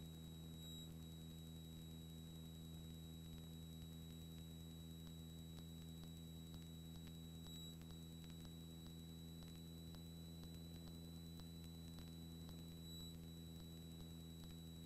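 Near silence on the aircraft's intercom audio feed: a faint steady hum with a thin high whine.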